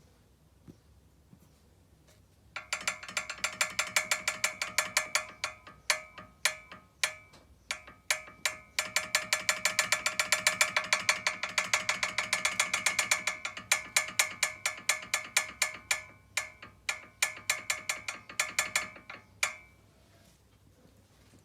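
Ford Focus 2 brake pads knocking in the caliper: a long rapid series of metallic clicks, each with a ringing note, starting a few seconds in, thickest in the middle and thinning out before it stops near the end.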